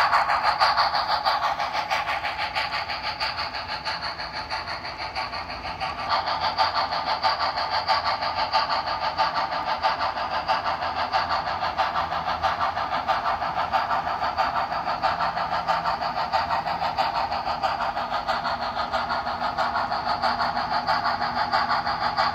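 Blue Line HO-scale model of Frisco steam locomotive #1630 running with its passenger cars on the layout track: a steady, fast rhythmic mechanical clatter. It dips for a few seconds and comes back louder about six seconds in.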